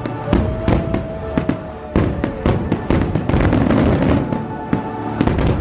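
Aerial fireworks bursting in quick succession, many sharp bangs and crackles, over music playing along with the show.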